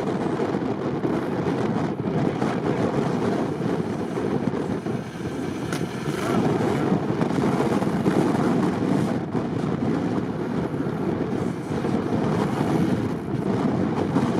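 Lifted ZAZ off-road car's engine running under load as its wheels spin in swamp mud, throwing mud and water, with wind on the microphone.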